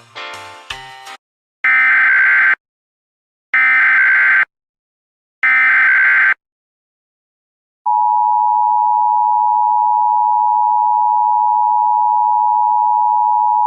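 The end of a music cue, then three one-second bursts of EAS SAME header data, screechy modem-like digital tones a second apart. About eight seconds in, the steady, loud Emergency Alert System attention tone begins and holds.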